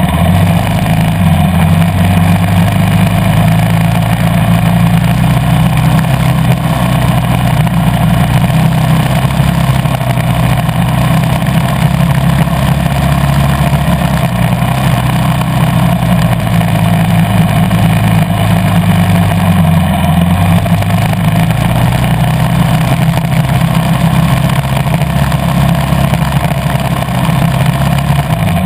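KTM 350 EXC-F dirt bike's single-cylinder four-stroke engine running under way, loud and steady, its note stepping up or down a few times.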